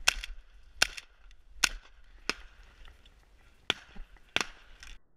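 Six shotgun reports at a passing flock of pigeons, in three pairs about two-thirds of a second apart.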